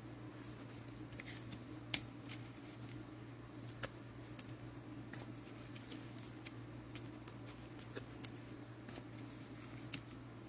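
Faint scattered clicks and rustles of trading cards and cello-pack wrappers being handled, over a steady low hum.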